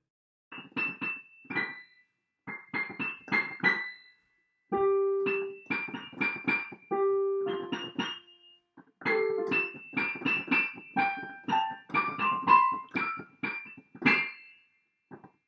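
A simple melody played note by note on a keyboard with a piano sound, in short phrases with brief pauses between them. A few lower notes are held longer. It stops shortly before the end, with a couple of faint last notes.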